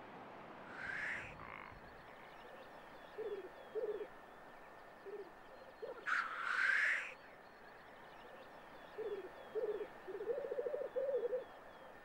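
Black grouse cocks displaying at a lek: bursts of low bubbling, rolling calls, with a longer rolling run near the end, and two hissing, blowing calls, about a second in and around six seconds in.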